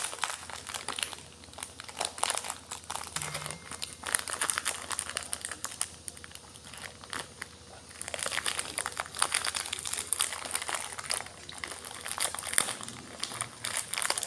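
Close-up crunching of kerupuk kulit (fried skin crackers) being bitten and chewed: dense, crisp crackling in two bouts, the second longer, starting about eight seconds in.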